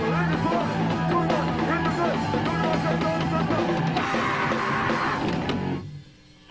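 Rock band playing live, with electric guitar over the full band. About six seconds in the music drops out abruptly, leaving only a faint trace of sound.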